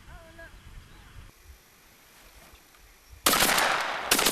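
A few short, repeated bird calls at the start, then two shotgun shots from a duck blind: a loud blast about three seconds in with a long echoing tail, and a second shot about a second later.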